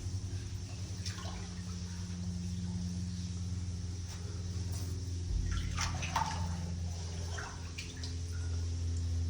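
Boots wading through shallow water and mud in a flooded mine tunnel: a series of splashes and sloshes, most of them around the middle, over a steady low hum.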